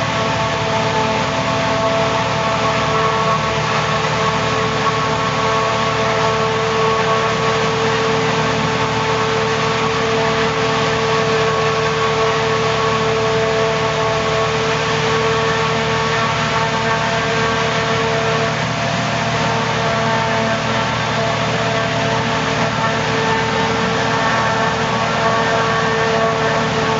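John Deere 5830 self-propelled forage harvester running steadily while chopping maize: a continuous engine drone with several constant whining tones over it.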